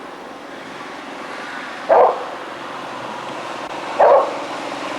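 A dog barking twice, about two seconds apart, over the steady, slowly swelling noise of an approaching truck.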